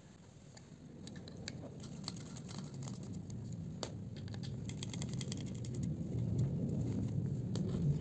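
Small screwdriver clicking and scraping on the screws of a USB charger board inside a plastic power-strip housing, with handling noise that grows louder.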